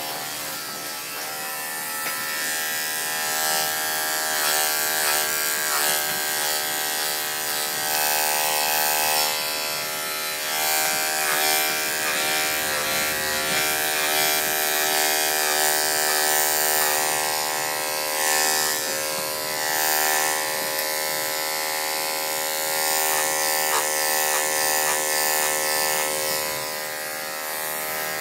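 Electric dog grooming clippers running steadily while clipping a dog's coat, a constant motor buzz that rises and dips a little in loudness as the blade works.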